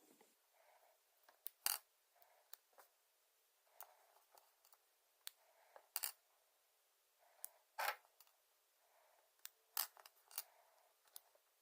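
Small metal hub parts and tools being handled while the original pawls are taken out of a Primo Remix BMX hub: irregular sharp metallic clicks, about five of them louder than the rest, with faint scraping between.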